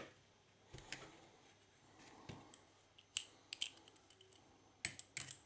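Scattered light clicks and small metallic taps of a precision screwdriver set being handled: the slim driver handle and steel bits knocking against their plastic case. The clicks come more often in the second half, the sharpest near the end.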